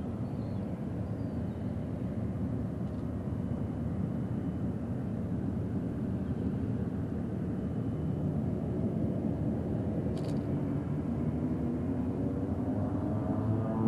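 Distant Fokker 50 twin turboprop engines running with the airliner lined up at the runway end, a low rumble that slowly grows louder. Near the end a propeller hum with a rising pitch comes in as the engines power up for the takeoff.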